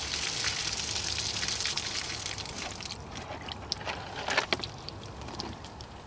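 Water gushing and trickling from shot plastic water jugs, fading after about three seconds. A few light clicks and knocks follow about four seconds in.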